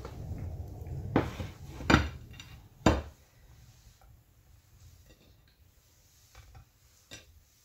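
A ceramic plate set down on a kitchen counter with a few sharp clinks and knocks, the loudest about two and three seconds in, then only faint light taps as cookie dough balls are placed on a round stoneware baking stone.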